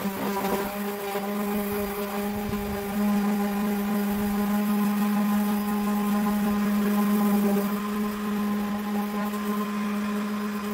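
Small electric motor running at a steady pitch: a constant hum that grows a little louder about three seconds in.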